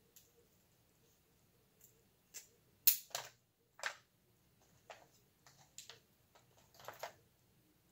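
Seafood shells being cracked and pried apart by hand: a scattered run of short, sharp clicks and cracks, the loudest about three seconds in.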